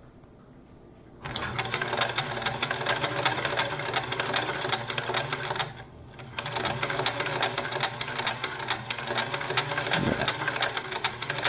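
Electric sewing machine stitching fabric at a fast, even rate. It starts about a second in, stops briefly near the middle, then runs again.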